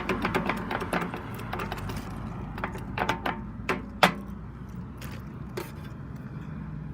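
McCain pedestrian crosswalk push button being pressed, clicking: a rapid run of clicks at first, then a few spaced single clicks, the loudest about four seconds in, over a steady low hum.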